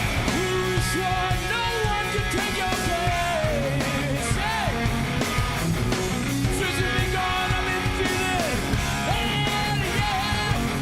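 Live rock band playing at full volume: electric guitar, bass and drums, with a yelled, sliding lead vocal over them.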